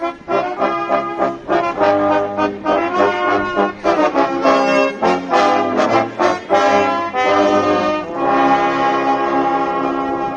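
Brass band playing a lively tune, with trombones and trumpets, ending on a long held chord.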